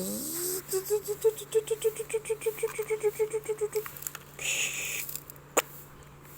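A child making a toy bulldozer's engine noise with their voice: a rising whoop, then a rapid puttering run of about six or seven beats a second for some three seconds. A short hiss follows, then a single sharp click near the end.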